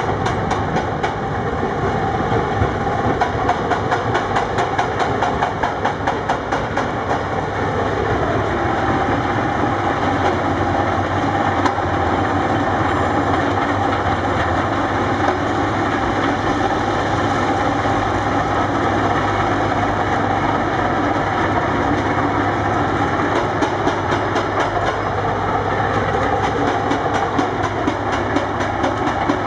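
Heavy quarry machinery running: the diesel engines of tracked excavators and a mobile rock crusher, with a steady rapid rattling clatter over the engine drone.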